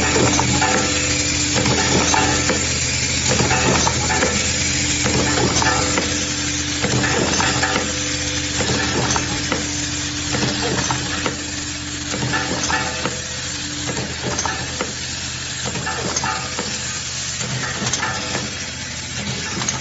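Automatic vial filling and capping machine running: a steady hum with constant clicking and rattling of small plastic parts. A higher tone in the hum drops out briefly early on and stops about two-thirds of the way through.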